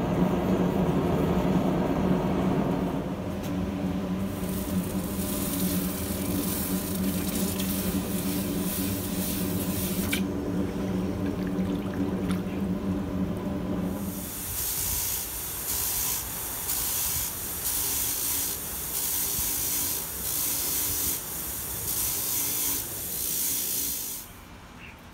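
Small gas forge burner running with a steady low roar and hum. In the second half, hot steel is quenched and swirled in a bucket of water, giving a hissing, splashing sound that pulses with the stirring and cuts off about a second before the end.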